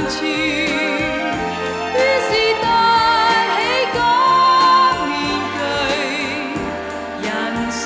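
Theme song of a Cantonese TV drama playing over the end credits. This is a passage between sung lines, its melody carried in long held notes that waver.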